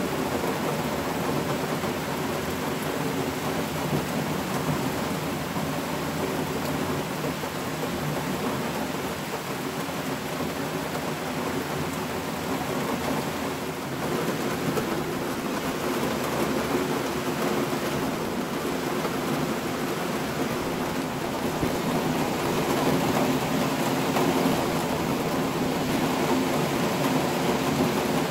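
Steady rain in a thunderstorm: a continuous rushing noise with a low rumble underneath, swelling a little in the last few seconds.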